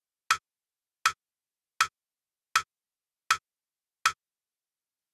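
Metronome click pulse: six sharp, evenly spaced clicks at about 80 beats a minute, the crotchet beat count-in that sets the tempo before a music extract is played.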